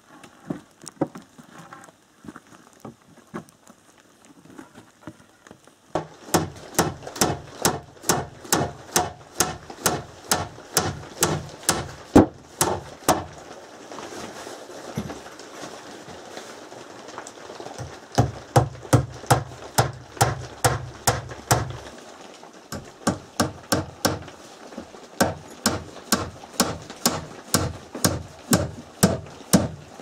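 Hammer nailing wooden boards: quick, regular blows, about two to three a second, in runs with short pauses, starting about six seconds in after a few lighter taps.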